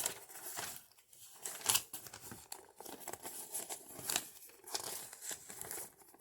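Paper rustling and crinkling in short, irregular bursts as a folded instruction manual is handled, with the loudest crackle a little under two seconds in.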